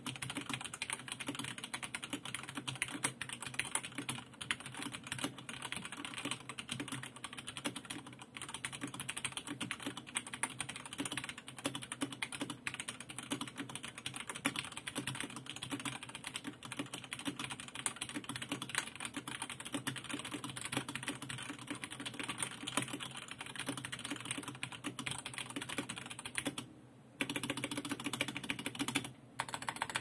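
Fast, continuous typing on a Heca Tech Piano mechanical keyboard fitted with stock, unlubricated Cherry MX Red linear switches: a dense run of key clacks with a short break near the end.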